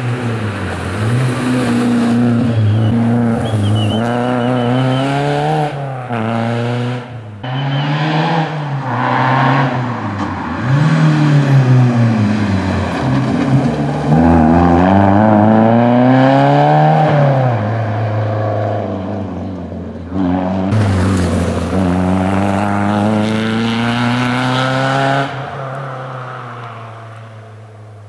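Renault Clio 1.4 rally car's four-cylinder engine revving hard through a stage, pitch climbing and dropping again and again as it accelerates, shifts gear and brakes for corners. It passes close by and fades away near the end.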